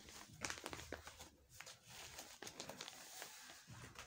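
Faint crinkling and rustling of a clear plastic packet as a packaged lawn suit is handled and opened, with many small irregular crackles.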